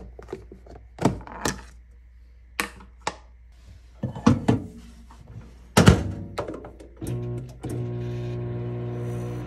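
Knocks and clunks of a plastic food container being handled and a microwave oven door being opened and shut. About seven seconds in, the microwave oven starts heating and runs with a steady low hum.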